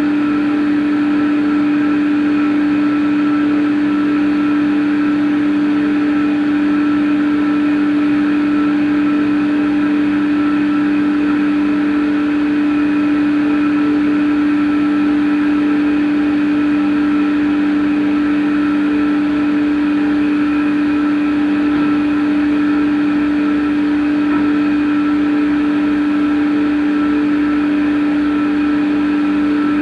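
CNC machine running steadily, a constant whine held at one pitch with fainter overtones above it, unchanged throughout.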